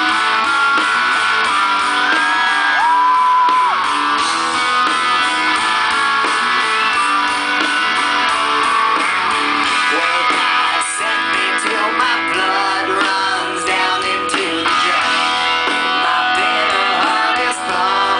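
Music with guitar, a held note sliding up about three seconds in.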